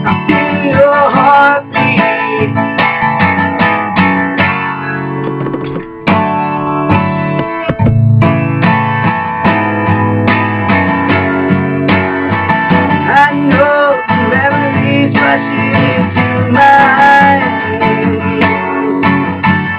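Guitar-led band music, an instrumental passage of a pop-rock song with a steady strummed rhythm.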